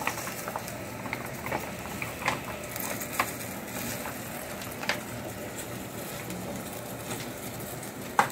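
Plastic sauce pouch being squeezed and crinkled over a saucepan: a handful of small crinkles and taps over a faint steady hiss, with a sharper tap just before the end.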